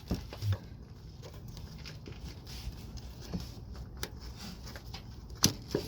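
A few sharp clicks and taps, the loudest near the end, as a wrench presses down the release collar of a push-to-connect air fitting on a truck cab air bag to free the air line.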